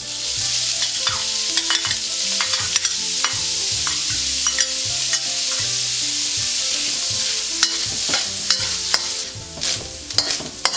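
Diced ham hitting hot oil in a steel wok and sizzling loudly; the sizzle starts suddenly as the ham goes in. A metal spatula scrapes and taps against the wok as the ham is stirred.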